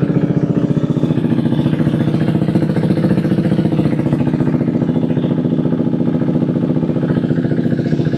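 KTM 390 Duke's single-cylinder engine idling steadily just after a cold start, with an even rhythm of firing pulses.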